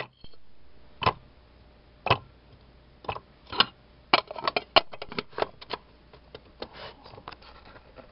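Clicks and knocks on hard plastic as strawberry pieces go into a mini food chopper's plastic bowl and the bowl is handled. The first few come singly, about a second apart. A quicker irregular run of clicks follows in the middle, then a few more near the end. The chopper's motor is not running.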